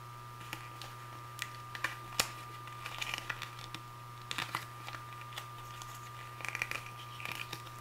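Thin paper leaflet being handled and its pages turned: scattered crinkles, flicks and rustles of paper, with a steady low hum underneath.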